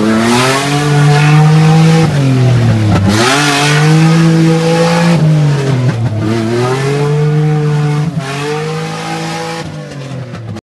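Land Rover Defender engine revving hard under load on a steep, rough dirt climb; its pitch drops and climbs again three times, with tyre and gravel noise over it. It gets quieter near the end.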